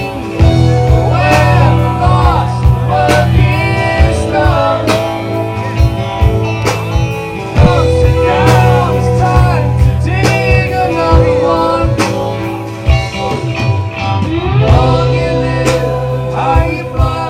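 A rock song with a sung melody over guitar, bass and drums, keeping a steady beat.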